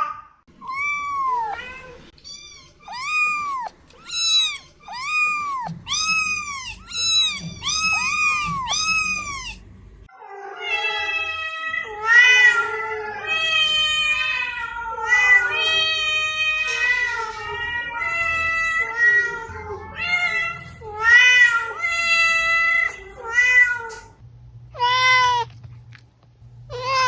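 Domestic cats meowing over and over: first a run of short meows, each rising and falling in pitch, about one a second; then, from about ten seconds in, lower and longer meows that overlap one another.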